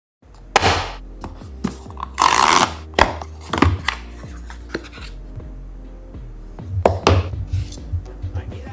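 Background music with sustained low notes, over unboxing sounds of hands handling cardboard packaging and a glasses case: scattered clicks and taps, and a louder scraping rub about two seconds in.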